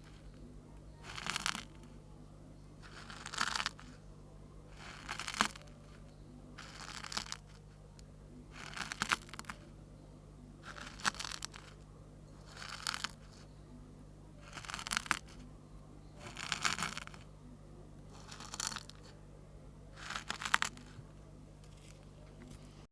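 Short rustling, scraping noises with small clicks in them, repeated about once every two seconds, over a low steady hum.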